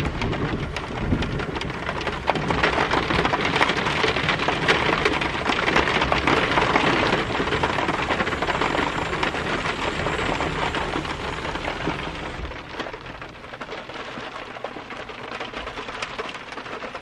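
Rain falling on a pickup truck's roof and glass sunroof, heard from inside the cab: a dense hiss of countless small drop ticks, easing to a lighter fall about twelve seconds in.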